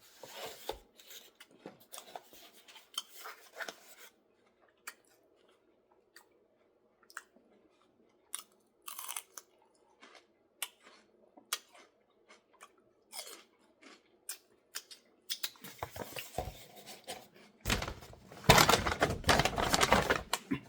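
Close-miked chewing and crunching of food, with many short wet clicks and crackles. A much louder burst of noise fills the last three seconds.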